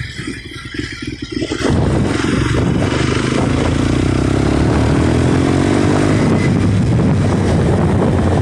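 Motorcycle engine running quietly with an even beat, then about two seconds in it gets much louder as the bike pulls away, its note rising as it gathers speed.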